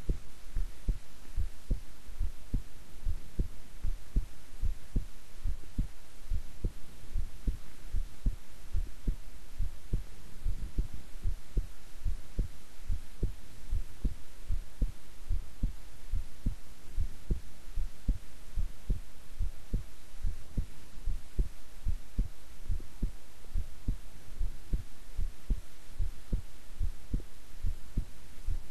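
A woman's heartbeat at rest: a steady, even run of low thumps repeating at a calm pace, over a faint hiss.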